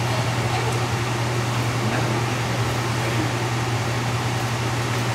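Steady hum of a running fan: a constant low drone under an even hiss, unchanging throughout.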